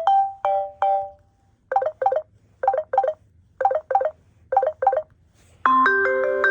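Samsung Galaxy Express 3 ringtones playing through the phone's speaker: a short run of notes fades out in the first second, then four quick double beeps about a second apart, and near the end a new ringtone starts with several notes struck together and held.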